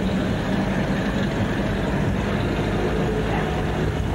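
Engine and road noise of a moving vehicle, heard from inside its cabin with the window open: a steady low engine drone under the rush of the drive.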